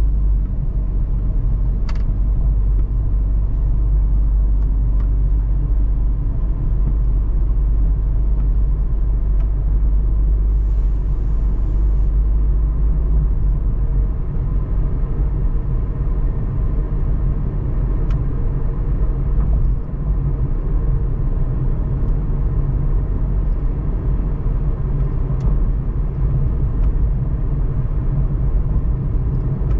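Car driving along a street: a steady, loud, low rumble of road and engine noise.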